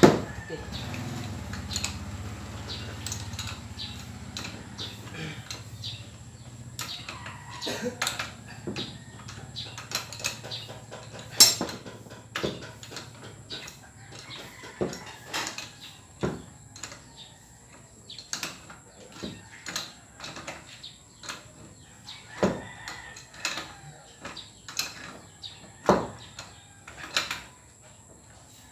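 Metal clicks and clinks of a hand wrench working the crank arm bolt onto a bicycle's sealed bottom bracket axle, tightening it. The clicks come irregularly, one or two a second.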